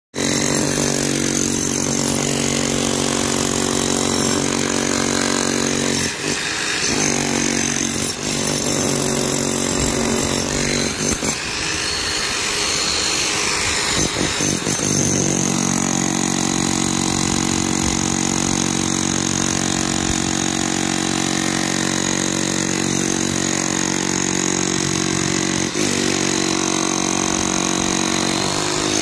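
Electric power tools working a concrete floor: a saw cutting a line to outline the deteriorated area, then an electric demolition hammer breaking out the weak concrete. The steady machine sound turns rougher and more irregular for several seconds in the middle, then settles again.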